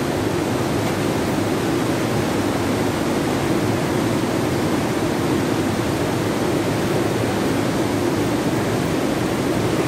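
Torrent of water rushing through a narrow rock gorge, a steady loud rush with no pauses.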